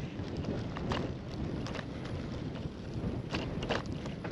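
Wind rumbling on the microphone, with a few short sharp clicks.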